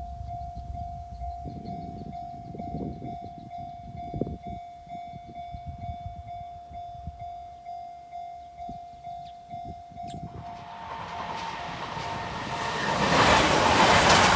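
Japanese level-crossing warning bell ringing with a rapid, steady repeated tone while a train rumbles over the crossing, its wheels thumping rhythmically over the rail joints. From about ten seconds in, a louder rushing train noise builds and is loudest near the end.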